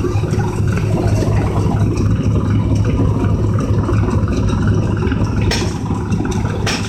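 An engine running steadily at idle with a constant low hum. Two short sharp knocks come near the end.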